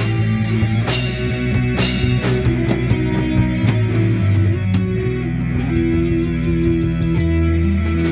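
A small rock band playing live: distorted electric guitars through amplifiers over held low bass notes, with a drum kit keeping time. Cymbal and drum hits come thick for the first few seconds and thin out after about five seconds.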